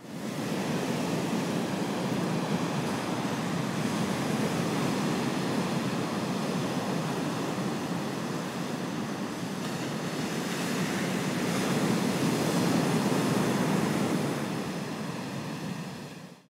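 Heavy ocean surf from a large hurricane swell: a steady wash of breaking waves, a little louder past the middle, fading out at the end.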